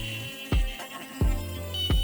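Background music with a steady beat: a low kick drum about every 0.7 seconds over sustained bass notes.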